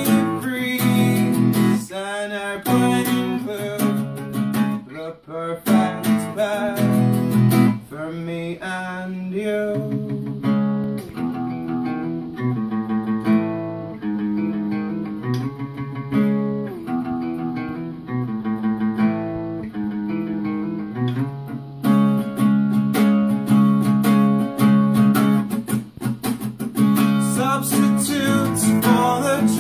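Small-bodied acoustic guitar strummed, with a man singing over it at the start and again near the end. In the middle the guitar plays alone, softer and note by note, before full strumming comes back.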